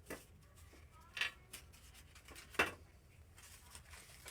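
Handling noise from small packaged first-aid supplies being packed into a kit: light rustling with three short, sharp clicks, the loudest about two and a half seconds in.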